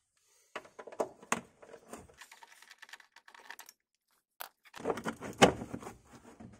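Hand tools clicking and rattling against the screws of a car's plastic wheel-arch liner as they are undone with a Torx screwdriver. A few sharp clicks come in the first two seconds, then a louder cluster of knocks and rattles about five seconds in.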